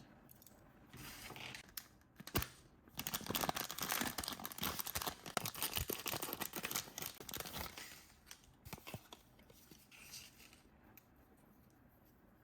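Toy packaging being opened by hand: a sharp click a little over two seconds in, then several seconds of tearing and crinkling, trailing off into a few light clicks and rustles.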